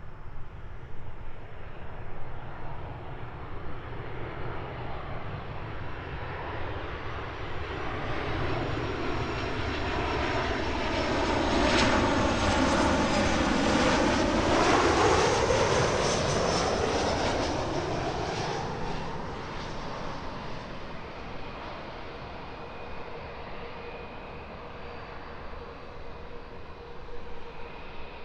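A landing jet airliner passing over on approach: its engine noise swells to a peak about halfway through, with a swirling, sweeping quality as it goes by, then fades away.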